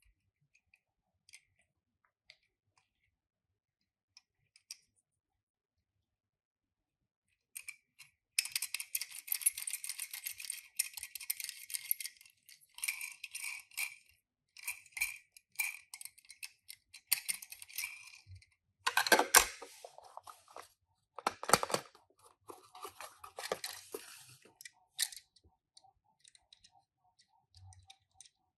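A few faint clicks, then from about eight seconds in, dense crinkling and rustling of toy-car packaging being handled and opened by hand, with two louder, fuller handling noises past the middle. It dies away to faint ticks near the end.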